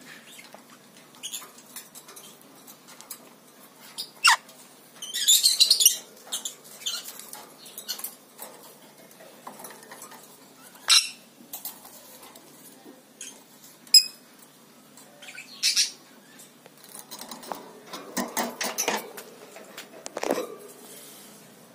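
A rainbow lorikeet moving about its wire cage: scattered clicks, taps and scratches of its beak and feet on the bars and perch. Among them are a few brief, sharper noises: one about four seconds in, a rough burst a second later, others around eleven, fourteen and sixteen seconds, and a run of quick scratches near the end.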